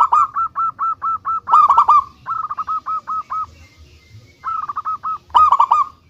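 Zebra dove (perkutut) calling: quick runs of short repeated cooing notes, about six a second, broken by brief pauses. Two louder, fuller bursts come, one about a second and a half in and one near the end.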